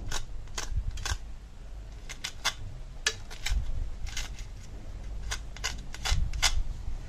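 Knife tip pressing and scraping into the crisp crust of a deep-fried sweet potato and egg fritter, giving irregular sharp crackles and crunches, about fifteen in all, that show how crispy the fried crust is.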